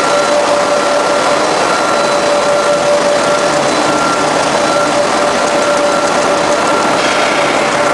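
Paper napkin making machine running: a loud, steady mechanical din with a constant high whine.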